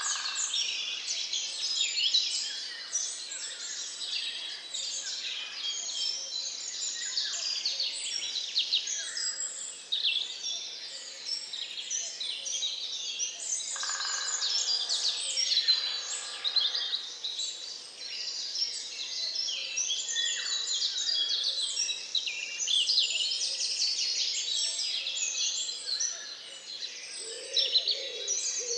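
Dawn chorus in a swamp forest: many birds singing at once, a dense, unbroken layer of high chirps and trills. A few lower calls stand out about halfway through, and a low call comes near the end.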